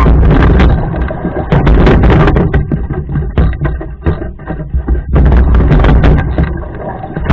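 Wind buffeting the microphone of a camera on a rowing boat, in loud rumbling surges that ease off about three seconds in and come back about five seconds in, with scattered short knocks throughout.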